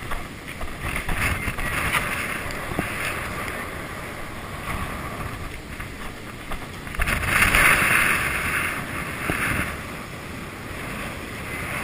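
Steady rushing noise of wind and water, swelling louder for about two seconds a little past the middle.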